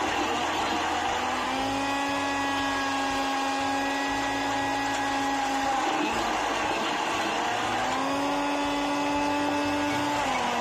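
Electric blender motor running continuously while blending a drink, its whine sagging and then climbing back to speed several times.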